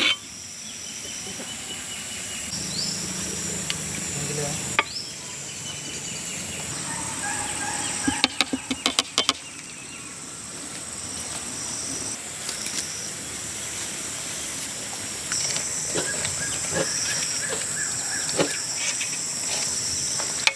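Steady, high-pitched chirring of insects, with a quick run of sharp knocks about eight seconds in and a few scattered clicks.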